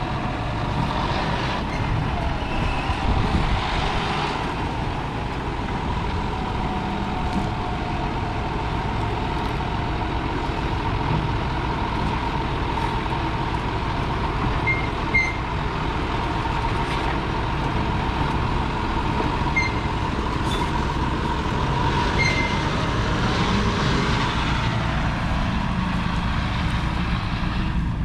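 John Deere 6155R tractor's 6.8-litre six-cylinder diesel engine running steadily, with a steady whine above the engine note and a few short high chirps.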